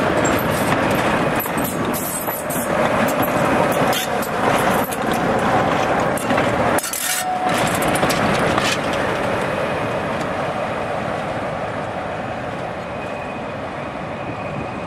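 Class 47 diesel locomotive's Sulzer twin-bank V12 engine running as it passes close by, with sharp clicks from the wheels over the track. After about nine seconds it fades steadily as the locomotive moves away.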